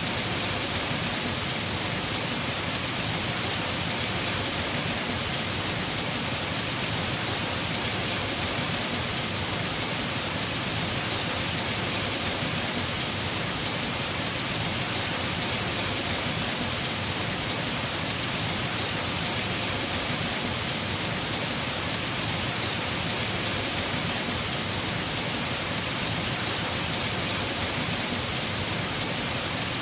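Heavy rain falling steadily on a house roof: an even hiss of many drops, unchanging throughout.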